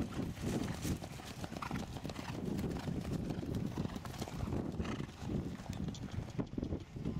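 Hoofbeats of horses cantering across soft grass pasture, a continuous run of dull irregular hoof strikes.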